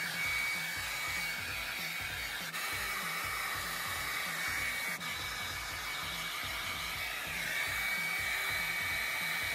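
Hand-held hair dryer with a diffuser attachment running steadily on hot and high power: an even rush of air with a thin, steady high whine.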